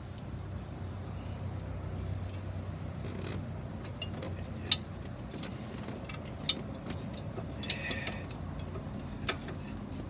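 A few sharp, scattered metallic clicks and clinks as brake caliper hardware and tools are handled during a brake pad job, the loudest about three quarters of the way through with a short ring, over a steady low hum.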